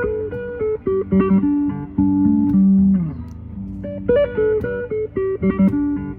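Guitar played in a jam: single plucked notes and short phrases, with one held low note sliding down in pitch about three seconds in.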